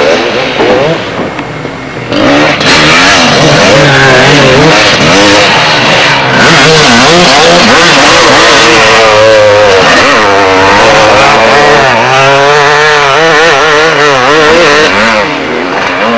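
Two-stroke motocross bike engine revving hard and unevenly, its pitch rising and falling with repeated throttle blips. It is softer for the first two seconds, then loud and close.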